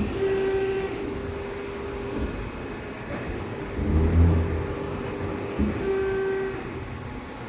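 Electro-hydraulic servo press brake running through its bending cycle. A steady whine from the servo motor and Bosch-Rexroth hydraulic pump comes and goes with the ram's strokes, with a heavier low hum about four seconds in. Short knocks sound at the start and about five and a half seconds in.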